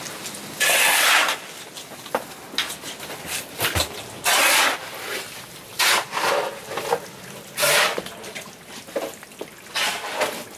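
Muddy floodwater on a floor splashing and sloshing in a string of short, irregular bursts.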